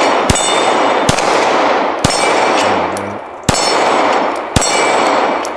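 Glock 19X 9mm pistol fired five times at an unhurried pace, about a second apart, each shot followed by steel targets clanging and ringing on.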